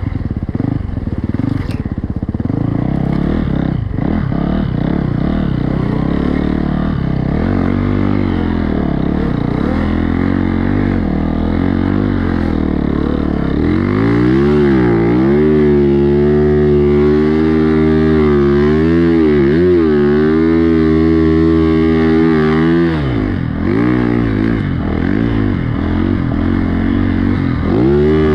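Timbersled snowbike's motorcycle engine running under load and revving up and down, its pitch rising and falling over and over as the rider works through the powder.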